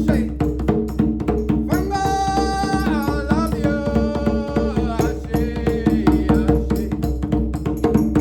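Djembe hand drumming, rapid polyrhythmic strokes, over music with a steady low drone and long held melodic notes.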